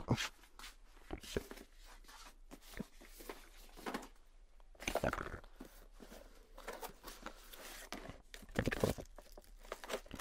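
A car central-locking kit's cardboard box being opened and its contents handled: rustling, scraping and small clicks of cardboard and plastic packaging. The louder handling comes about five seconds in and again shortly before the end.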